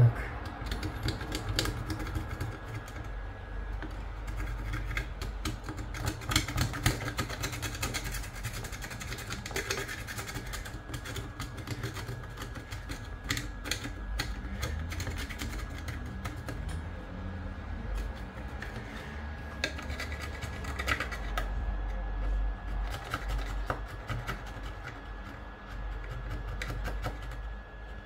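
Hand work on a metal detector's casing during repair: irregular small clicks, taps and scraping over a low rumble.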